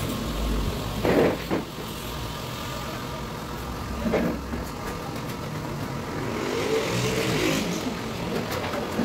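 Sharp knocks and clunks from work on the kitchen cabinets, twice near the start and once about four seconds in. Near the end a small motor whirs up and back down for a second or so.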